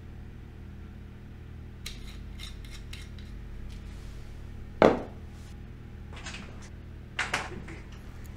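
Ice cubes clinking into glass whiskey tumblers: a run of light clinks about two seconds in, one loud knock on the counter about five seconds in, and two more sharp clinks near the end, over a low steady hum.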